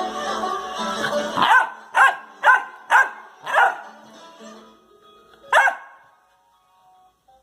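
Background music that stops about a second and a half in, then a Labrador retriever barking: five barks about half a second apart, a short pause, and one more bark.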